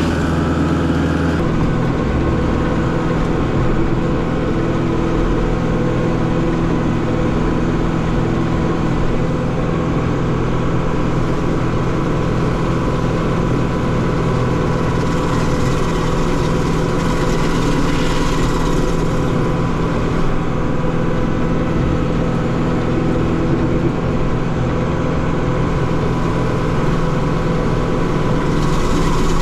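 Compact tractor engine running steadily, heard from inside the tractor's cab while it drives a rear-mounted stump grinder. The low engine note shifts slightly about a second and a half in, and a hissier stretch comes in around the middle.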